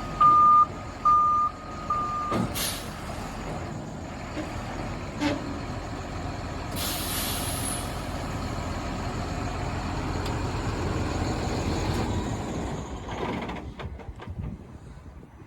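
Backup alarm on a Gradall XL4100 wheel excavator beeping about once a second, stopping about two seconds in with a short sharp hiss of air, over its Mercedes-Benz diesel engine running. A longer air hiss comes about seven seconds in, and the engine noise falls away near the end.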